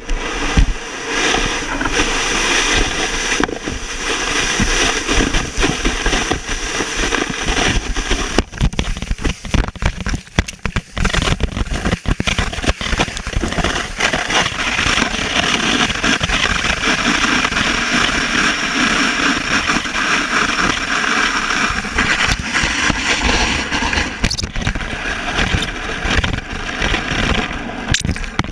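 Plastic sled running fast down a snowy hill, its hull scraping and hissing over the snow without a break. Sharp knocks from bumps come through the sled, several of them near the middle.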